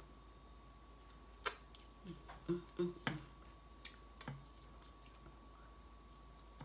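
Faint mouth sounds of someone eating a burrito: a handful of soft wet smacks and clicks spread over a few seconds, over a faint steady hum.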